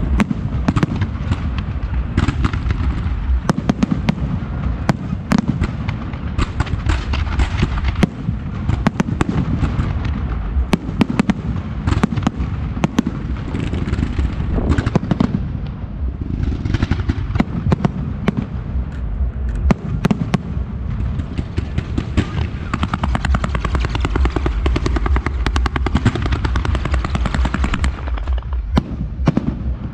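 Fireworks display: aerial shells and ground effects bursting and crackling in quick succession, many sharp bangs over a continuous low rumble.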